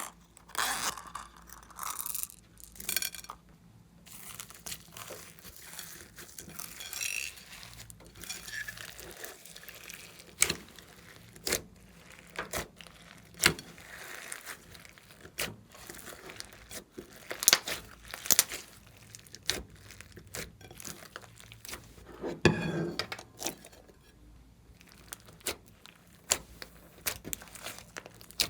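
Glossy slime being kneaded and stretched by hand, giving irregular sharp pops and clicks with stretches of sticky crackling. A longer, louder crackling stretch comes about three quarters of the way through.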